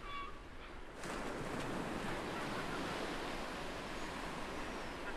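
Ocean surf washing onto a beach, swelling about a second in into a steady wash. A short seagull call sounds at the very start.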